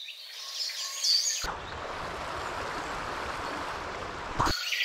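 Small birds chirping over the steady rush of river water. The chirping is clearest in the first second or so and again near the end.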